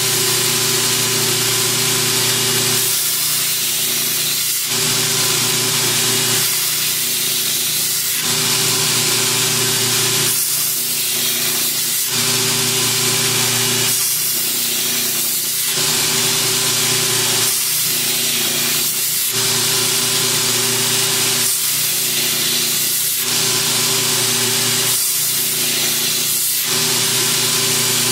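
Belt grinder running an 80-grit silicon carbide belt while a steel kukri machete blade is ground on it: a steady motor hum under a loud grinding hiss that changes every couple of seconds as the blade is drawn across in repeated passes. The grinding is cutting a new edge bevel onto a blade whose edge was flat.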